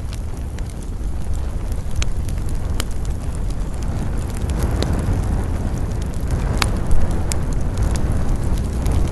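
Campfire burning with a steady low roar of flames and scattered sharp crackles and pops, the loudest pop a little after the middle.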